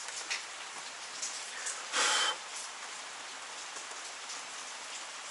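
Steady rain falling, with scattered drips. About two seconds in, a short loud hiss stands out for about a third of a second.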